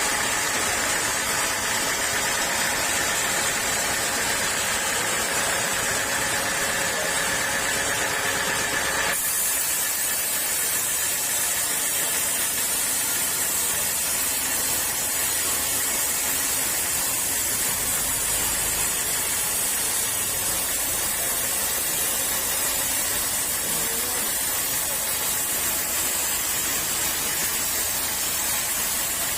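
Sawmill machinery running steadily with a humming tone. About nine seconds in, the sound changes abruptly to a steady hiss.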